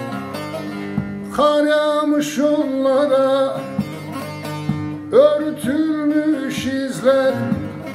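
Bağlama (long-necked Turkish saz) playing a plucked melody while a man sings a Turkish folk song over it in two long, wavering phrases.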